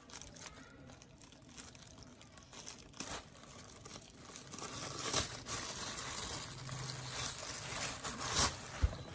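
Handling noise from a pair of Chaco sport sandals being moved and turned on a display stand: irregular rustling of the nylon webbing straps, with light knocks of the rubber soles. It gets busier and louder about halfway through.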